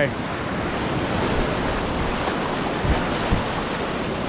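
Ocean surf breaking and washing up a sandy beach, with wind on the microphone and two short low bumps about three seconds in.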